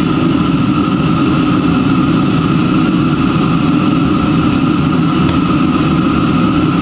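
Steady mechanical drone, loud and unbroken, with a constant thin whine above it.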